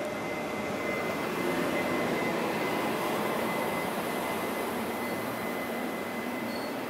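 Taiwan Railways E200-series electric locomotive passing slowly alongside the platform: a steady rushing noise with a thin high whine, swelling to its loudest about two seconds in as the locomotive draws level.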